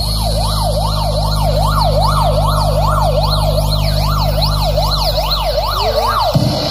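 Siren sound effect played loud through a miniature sound system, its pitch sweeping up and down nearly three times a second over a steady low drone. The drone cuts off about six seconds in.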